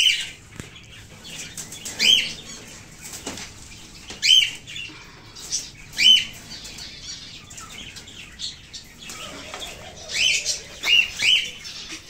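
Cockatiels flapping their wings and giving about seven short, high chirping calls scattered through, several bunched near the end.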